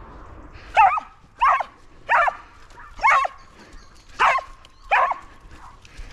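A dog barking six times in a row, sharp loud barks spaced a little under a second apart.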